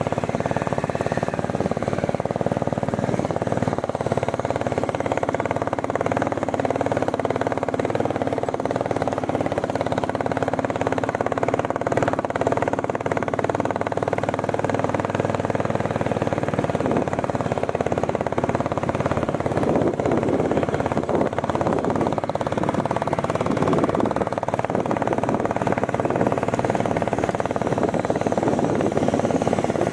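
Royal Enfield Bullet 350's single-cylinder engine running steadily as the motorcycle is ridden.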